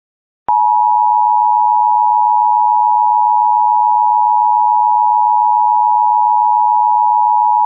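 Emergency Alert System attention signal: a steady, unbroken high tone that starts about half a second in. It announces an alert about to be read.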